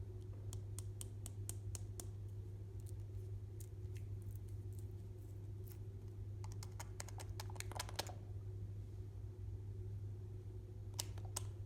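Slime being pressed and worked by hand, giving clusters of sharp clicking pops from trapped air, over a steady low hum.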